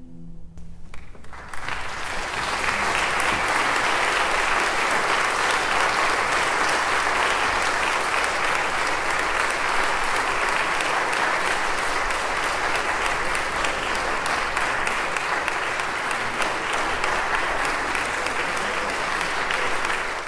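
Audience applauding, building to full clapping over the first two seconds and then holding steady. The last held note of a duduk ensemble ends right at the start.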